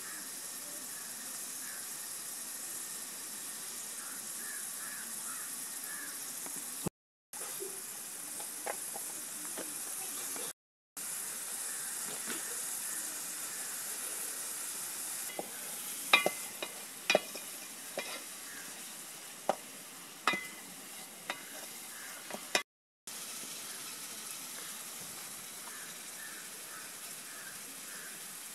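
Hands mixing chopped mushrooms with masala paste in a steel plate, over a steady high hiss of background noise. In the middle stretch there are about eight sharp metallic clinks against the plate. The sound breaks off into brief silences three times.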